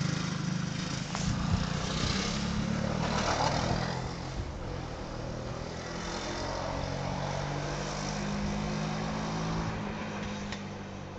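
Small three-wheeler ATV engine running as it is ridden around, its pitch rising and falling with the throttle and fading toward the end as the machine moves off.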